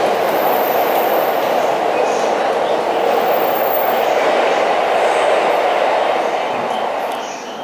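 Electric commuter train running along the station tracks: a steady rolling rumble of wheels on rail, fading a little near the end as the train moves away.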